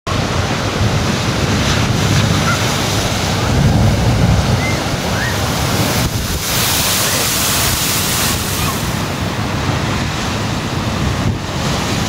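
Storm waves crashing and surging over a rocky shore in a gale, with strong wind buffeting the microphone. A continuous roar, heaviest about four seconds in.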